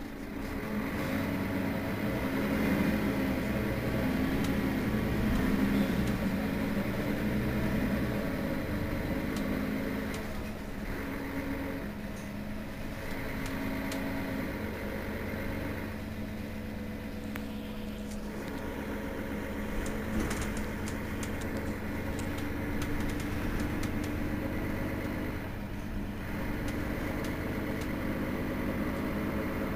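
Mercedes-Benz Citaro Facelift city bus standing with its rear-mounted engine idling, a steady hum. The hum grows louder about a second in, then settles lower after about eight seconds.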